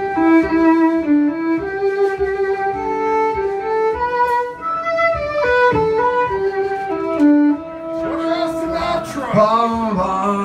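Fiddle and tin whistle playing an Irish tune live, a melody of held notes moving up and down step by step. Near the end a man's voice comes in.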